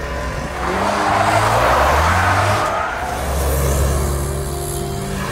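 A car driving with its tyres skidding in a loud hiss that lasts about two and a half seconds, starting about half a second in, over soundtrack music.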